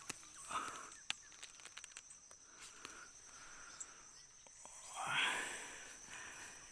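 Quiet outdoor ambience: a steady high-pitched insect drone with scattered small clicks, and a brief rushing noise about five seconds in.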